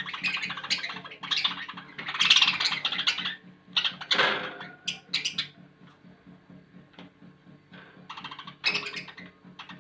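Budgerigars squabbling: harsh, rapid, buzzy chattering squawks, loudest in the first three seconds, then a falling squawk about four seconds in and scattered short calls, over a steady low hum.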